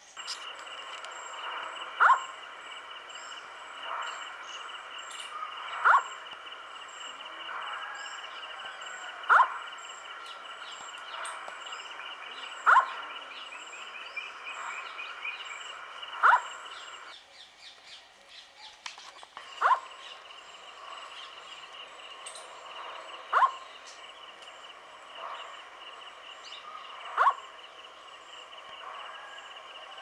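Indian scops owl giving short single hoots about every three and a half seconds. Fainter hoots from a second scops owl come in between, over a steady high trill.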